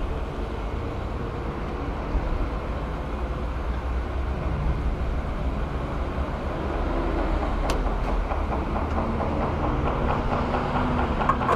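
Small 49cc Shineray motorcycle engine running steadily with a fast, even pulsing. The owner says the engine is knocking and making a strange noise.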